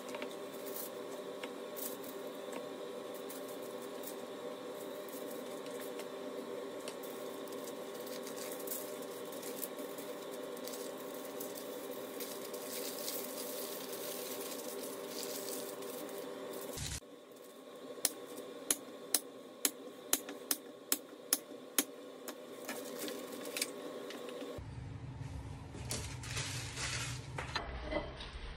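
Butter paper and aluminium foil being handled and rolled by hand, rustling and crinkling over a steady hum. Midway the sound cuts to a run of sharp knocks, about two a second.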